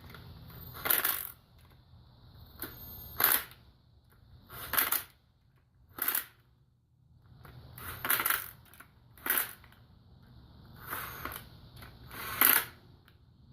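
About eight sharp metal clinks, each with a short ring, coming irregularly a second or two apart: metal engine parts and hand tools knocking together as they are handled during camshaft installation.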